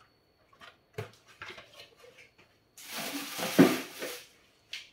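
Dishes and utensils being handled on a kitchen counter: a few light clicks, then a scraping rustle lasting about a second and a half with a sharp knock in the middle of it.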